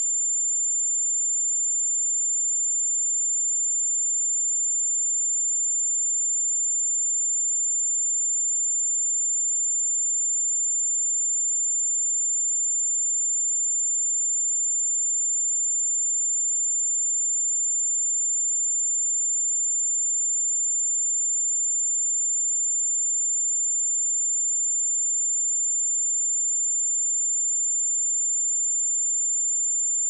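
Pure 7213 Hz sine-wave test tone, a single high-pitched steady tone held at constant level.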